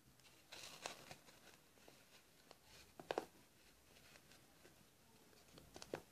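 Faint rustling and light taps of hands handling a crocheted yarn tree on a wooden tabletop. The clearest taps come about a second in, around the middle, and near the end.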